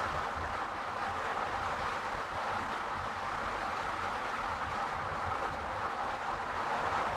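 Steady road noise from a car driving along: tyre and wind noise over a low engine rumble, growing slightly louder near the end.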